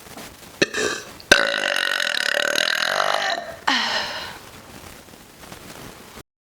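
A woman burping close to the microphone: a short burp, then a long, loud burp lasting about two seconds, then a shorter one that falls in pitch and fades.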